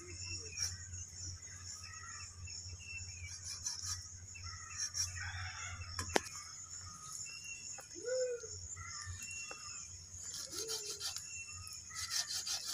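Chickens clucking now and then, with small birds chirping, over a steady high hiss. About six seconds in, a single sharp knock from the machete striking the cow head.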